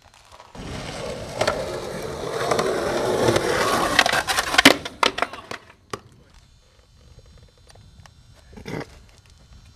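Skateboard wheels rolling over rough concrete, growing louder over a few seconds. A cluster of sharp clacks and scrapes comes about four to five seconds in as the board hits the lip, then the rolling dies away.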